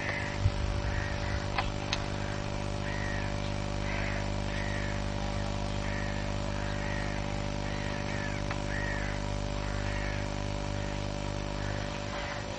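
A steady mechanical hum with a bird repeating a short chirping call about once a second. A couple of sharp knocks come in the first two seconds.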